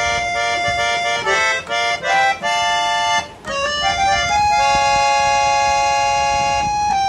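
3.5-octave harmonium with Indian reeds being played: a run of short notes and chords with brief breaks, nearly stopping about three seconds in, then a long held chord.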